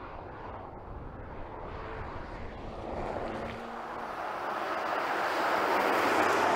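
Porsche Macan GTS with its 2.9-litre twin-turbo V6 driving closer, its engine and tyre noise growing steadily louder, loudest near the end.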